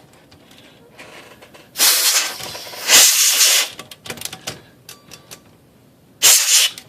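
Aerosol spray cleaner hissing in three bursts, two back to back about two seconds in and a shorter one near the end, flushing out the binding carriage return arm and its shaft on a manual typewriter. A few faint clicks between the bursts.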